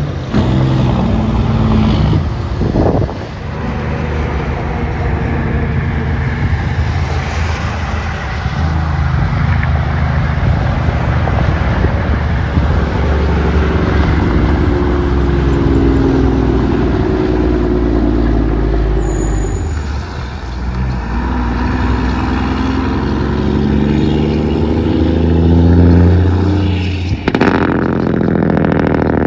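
Semi-truck engine brakes (Jake brakes) firing: a loud, rapid exhaust bark from the diesel as each truck slows, its pitch shifting in steps. Several trucks are heard one after another.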